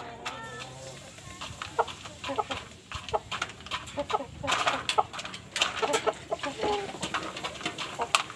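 Chickens clucking: short, scattered calls mixed with sharp clicks, busiest around the middle.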